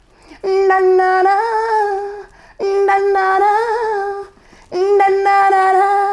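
A girl's voice singing a long held note three times in a row, each about two seconds, at the same pitch with a slight waver.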